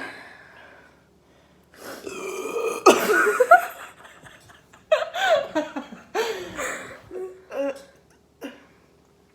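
A person burping several times in a row, releasing gas from chugged carbonated Sprite, with short pitched vocal sounds between the burps.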